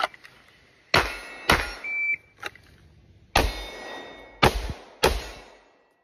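Pistol shots: five loud shots at uneven spacing, with a couple of fainter ones between, each trailing off quickly. A brief high beep sounds about two seconds in.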